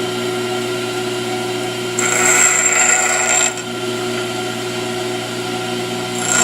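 Pedestal grinder running with a steady motor hum. About two seconds in, a high-speed steel lathe tool bit is pressed against the wheel for a second and a half, making a louder, hissing, high-pitched grinding sound that stops abruptly when the bit is lifted off.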